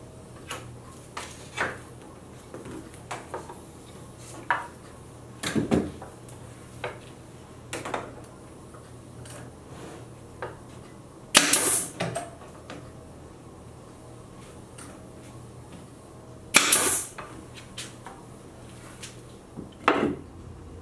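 Wooden cedar shingles clacking and tapping as they are picked up and set against a plywood box, with two loud pneumatic nailer shots, each with a short hiss of air, a little past halfway and again about five seconds later.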